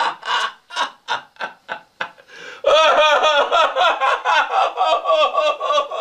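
Laughter in quick, repeated pitched bursts, which grows louder and denser about two and a half seconds in.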